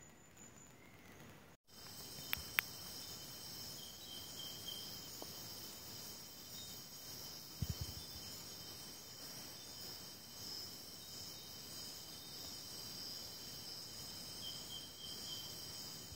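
Faint, steady chorus of crickets and other forest insects trilling at several high pitches. Two small clicks come a little after two seconds in, and a short low thump comes about halfway through.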